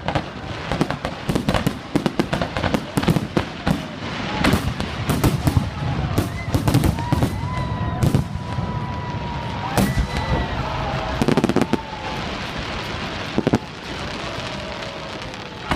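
Fireworks display: a dense, rapid string of bangs and crackling bursts going on without a break.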